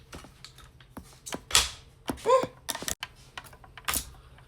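Hard plastic clicks and knocks of a stroller's front wheels being pushed and snapped into their mounts, irregular, with a louder snap about a second and a half in and another near the end.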